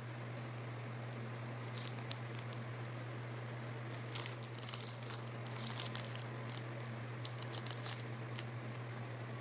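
Plastic packaging crinkling and crackling in irregular bursts as it is handled and opened, starting about two seconds in, over a steady low electrical hum.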